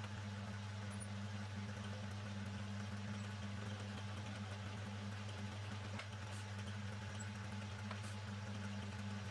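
Electric motor of a workshop machine running steadily, with a strong low hum and a few faint ticks.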